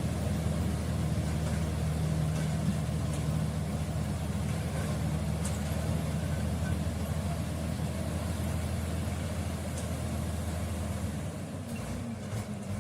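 Komatsu D85E-SS bulldozer's diesel engine running with a steady low drone. Near the end the deepest part of the drone drops away.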